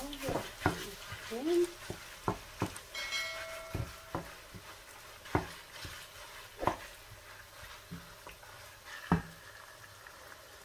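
Wooden spatula stirring and breaking up raw minced meat and onions in a nonstick pot, knocking irregularly against the pot, with the meat frying in a faint sizzle underneath.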